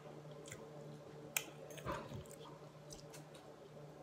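Quiet eating sounds: instant noodles being chewed, with a few small clicks of a fork against a plastic noodle bowl, the sharpest about a second and a half in. A steady low hum sits underneath.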